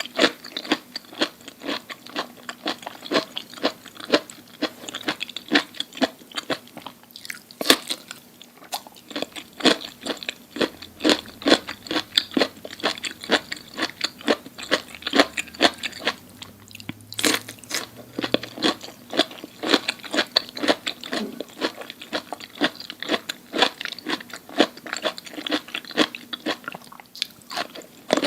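A person chewing crunchy food in steady, repeated crunches, a few a second.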